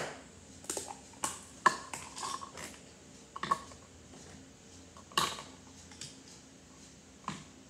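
Small plastic toys being handled and knocked together: a scattering of sharp clicks and clatters, about eight in all, the loudest about five seconds in.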